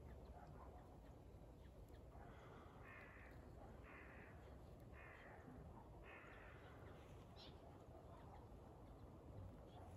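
Faint crow cawing: five caws about a second apart, over near-silent background.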